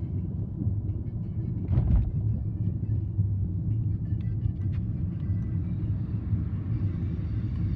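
Car cabin noise while driving slowly: a steady low rumble of tyres and engine, with one brief jolt about two seconds in.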